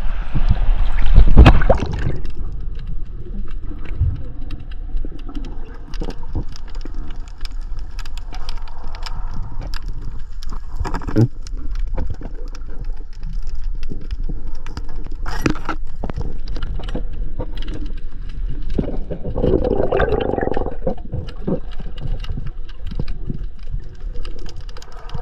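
Muffled water noise from a spearfishing diving camera, with gurgling swirls and many scattered small clicks. There is a louder rush in the first two seconds and another about twenty seconds in.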